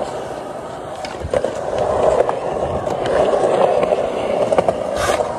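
Skateboard wheels rolling over smooth concrete: a steady noise that grows louder through the middle, with a few light clicks.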